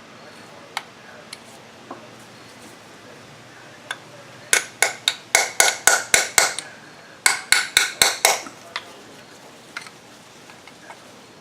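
Quick metal-on-metal hammer taps, a run of about eight, then after a short pause about six more, each ringing briefly, with a few lighter single knocks around them. Tapping at the old torque converter seal in the transmission to collapse it so it can be pried out.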